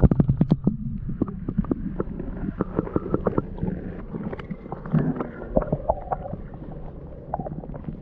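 Muffled river water heard through a submerged camera: a steady low rumble and gurgle, with a quick run of sharp knocks in the first second and scattered clicks after.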